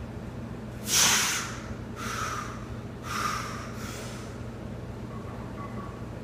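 A weightlifter's forceful breaths during a heavy barbell back squat set: a sharp, loud exhale about a second in, then three shorter breaths.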